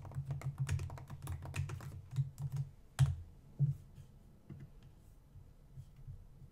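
Typing on a computer keyboard: a quick run of key clicks for about three seconds, two louder clicks around three seconds in, then scattered softer clicks.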